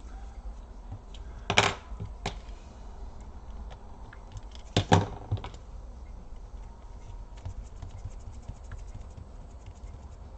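Small clicks and knocks of hand work inside an opened laptop as a disconnected ribbon cable is fitted back into its connector: a sharp click a second and a half in, a softer one shortly after, a double click about five seconds in, then a run of faint rapid ticks.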